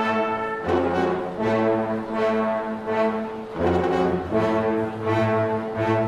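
Instrumental music: full sustained chords that change every second or so over a low bass line.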